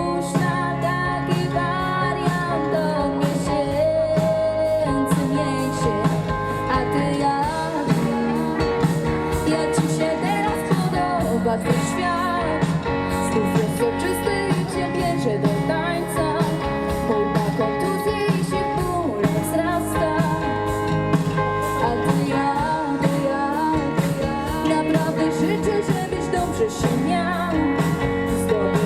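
Live rock band playing: electric guitar and drums with a singing voice over a steady beat.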